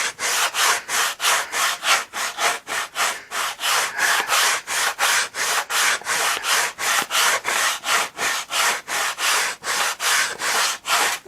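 Sandpaper, 150 grit, rubbed back and forth over a balsa leading edge in quick, even strokes, about four a second, rounding the edge over. The sanding stops suddenly near the end.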